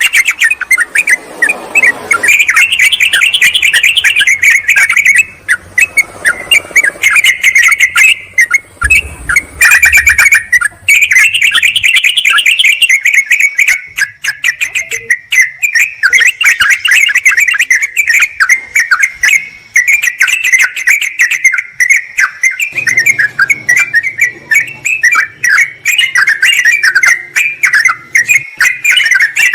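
Yellow-vented bulbuls (trucukan) in a noisy, agitated chorus of calls: a dense, nearly unbroken run of rapid, bubbly chirps. This is the excited calling of birds challenging a rival, used as a lure.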